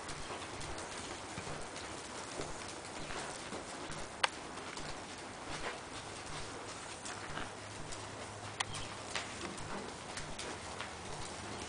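Hoofbeats of a ridden horse trotting on sand footing, an uneven run of soft clip-clops. Two sharper clicks stand out, one about four seconds in and another about eight and a half seconds in.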